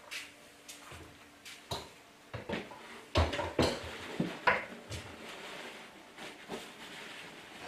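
A plastic tub being tipped and rocked on a tile floor with a puppy inside, making knocks and scrapes. A few light knocks come first, then a denser run of louder knocks and scrapes about three seconds in.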